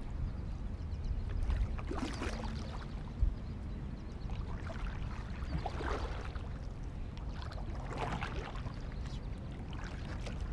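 Kayak paddle strokes through floodwater: the blades dip and splash about every two to three seconds over a steady low rumble.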